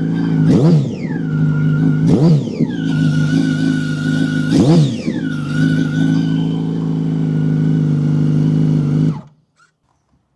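2006 Yamaha R1's inline-four engine idling through an aftermarket exhaust with a single baffle insert, blipped sharply three times. Each rev rises and falls quickly. The sound cuts off near the end. The owner judges it still too loud to pass inspection and thinks it needs two inserts.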